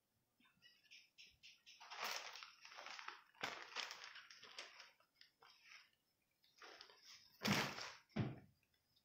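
Cloth rustling and swishing as a folded chador is unfolded and shaken out by hand, in a string of uneven bursts. The loudest is a heavier flap about seven and a half seconds in.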